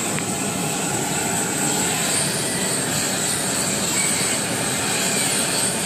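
LPG blowtorch burning with a steady rushing hiss as its flame singes the hide of an animal carcass.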